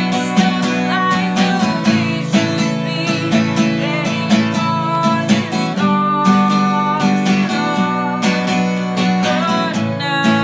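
Acoustic guitar strummed in a steady rhythm, playing full chords.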